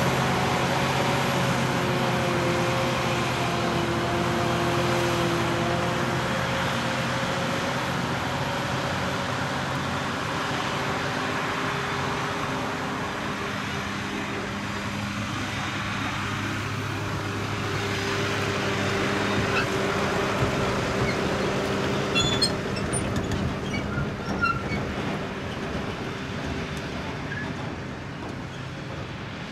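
Claas Jaguar 860 self-propelled forage harvester running steadily while chopping maize and blowing it through its spout into a silage trailer, with the engine of the tractor alongside. A few light ticks come about three-quarters of the way through.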